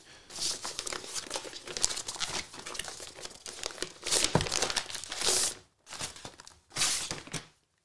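Rustling and crinkling of a laptop's protective wrapping as it is peeled back and the laptop is slid out of its sleeve. The sound comes in uneven bursts, with a couple of brief pauses near the end.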